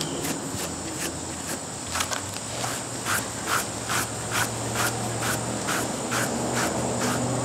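Kong rubber brush rubbing through a dog's short coat in repeated strokes. Crickets chirp steadily in an even rhythm behind it.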